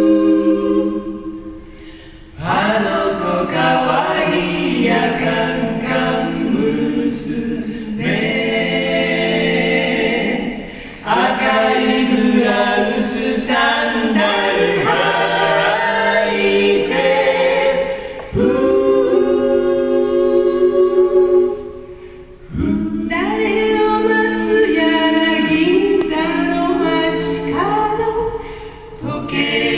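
Small mixed vocal group singing in close harmony, unaccompanied, in phrases broken by short pauses.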